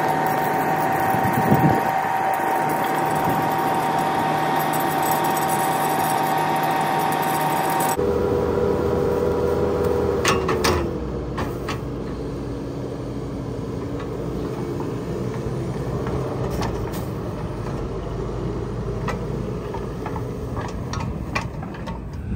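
New Holland skid steer running, its Danuser hydraulic auger drive spinning a wire-rolling spindle that winds up old barbed wire, with a steady whine. About eight seconds in the sound changes abruptly, and a few seconds later the pitch drops as the drive slows. A few sharp clicks of wire are heard.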